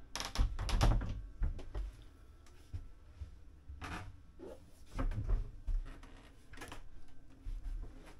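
Interior doors on a yacht being handled: latch clicks and knocks in a busy patch during the first two seconds and again around four to five seconds in, with low thumps of movement between them.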